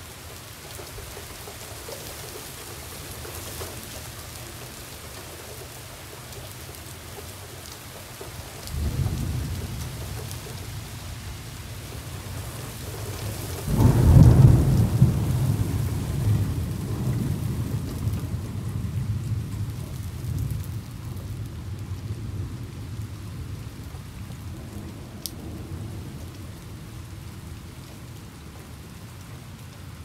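Steady rain with thunder: a low rumble starts suddenly about nine seconds in, then a louder peal breaks about fourteen seconds in and rolls on, fading away over the next ten seconds.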